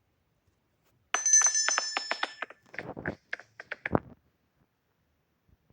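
An electric bell ringing with a fast rattling strike, starting suddenly about a second in and lasting a second and a half, followed by a few irregular knocks.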